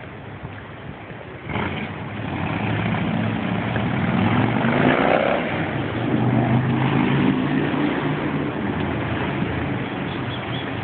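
City street traffic: motor vehicle engines running as they drive past, growing louder about a second and a half in, with one engine rising in pitch as it accelerates near the middle.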